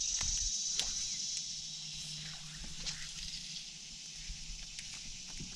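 Insects buzzing in a steady, high chorus that fades somewhat over a few seconds, with a few faint clicks.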